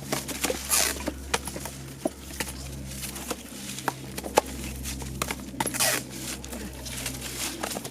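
Irregular light clicks, clinks and knocks from small hard objects being handled, with two brief rustling hisses, over a steady low hum.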